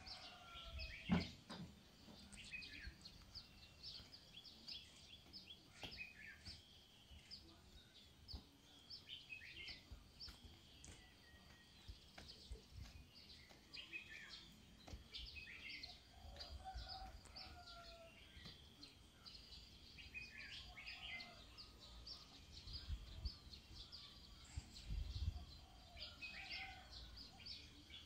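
Faint chirping and twittering of small birds, repeated short calls all the way through. A single sharp knock comes about a second in, and a low rumble comes and goes.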